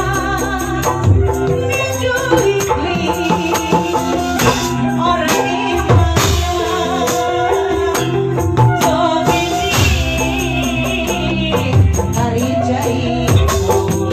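Music with a tambourine shaken and struck along to the beat, over sustained bass notes and a wavering melody line.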